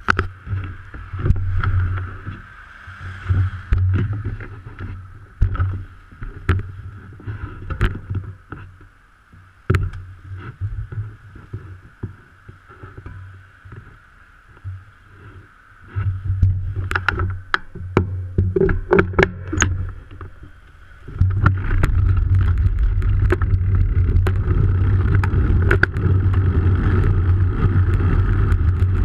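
Wind buffeting the microphone of a moving action camera, a low rumble and hiss that comes and goes, with scattered sharp clicks and knocks. About 21 seconds in the wind rumble turns loud and continuous.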